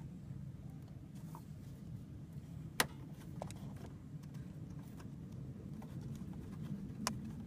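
Sharp clicks and small knocks as a hand works the radiator's drain cap loose, the loudest click about three seconds in and another near the end, over a steady low hum.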